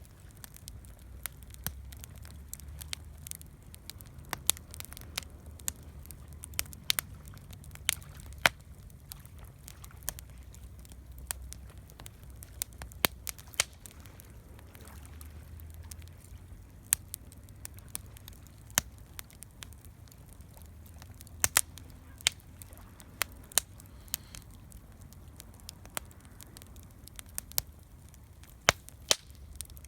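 Wood campfire crackling, with sharp, irregular pops coming often, several close together at times, over a low, steady rumble.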